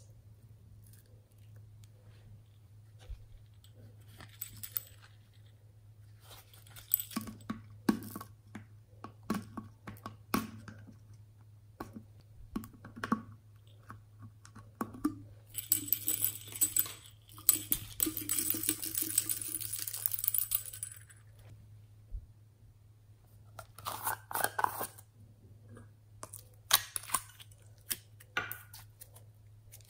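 Glitter slime being squished and handled by hand: scattered sticky clicks and pops, a stretch of several seconds of hissy crackling about halfway through, then more clicks near the end, over a faint steady hum.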